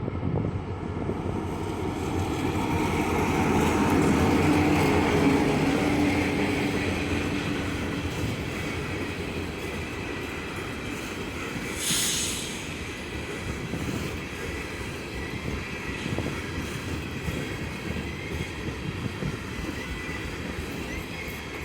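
CSX freight train passing: the diesel locomotive's engine gets loudest about four to six seconds in, then the railcars roll by with wheel clatter and squeal. A short burst of hiss about twelve seconds in.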